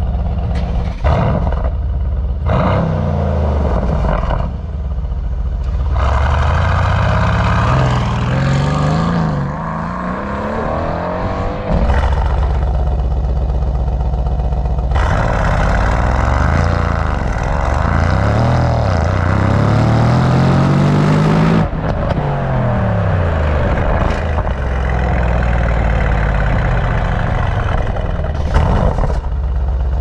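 Mercedes-AMG C63's 4.0-litre twin-turbo V8 on its standard exhaust (no performance flap system), heard right at the quad tailpipes, revved repeatedly while standing. A few quick blips come first, then several long revs that rise and fall in pitch, with a steady idle in between.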